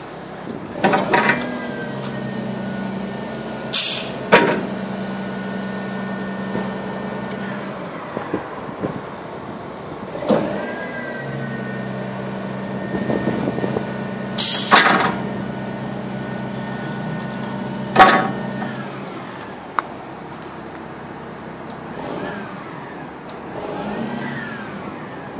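Hydraulics of a Geesink rear-loader refuse body working through two cycles. Each time a steady whine rises, holds for six to eight seconds, then falls away, with a short sharp hiss of air partway through.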